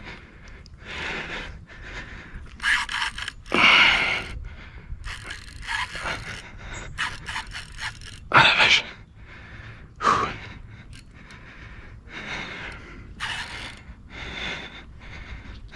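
An angler's hard, irregular breathing and gasps while fighting a big fish on a bent rod, with the mechanical scraping and clicking of the fishing reel between breaths.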